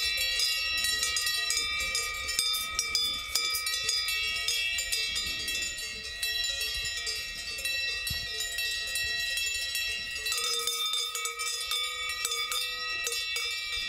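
Cowbells clanking and ringing without pause, several bells of different pitches sounding at once with an irregular jangle, as from a herd of cattle.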